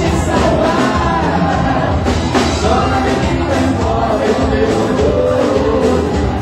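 Live band performing a song: a woman sings lead into a microphone over strummed acoustic guitar and a full band.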